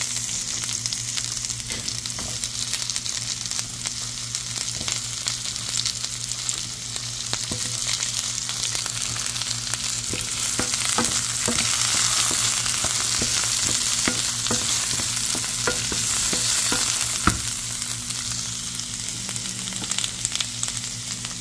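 Sliced onion and carrot sizzling in a stainless steel skillet, stirred with a spatula that scrapes and taps against the pan, with one sharper knock late on.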